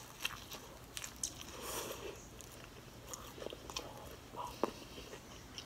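Close-up biting and chewing of a fried shrimp egg roll, with scattered small crunches and mouth clicks.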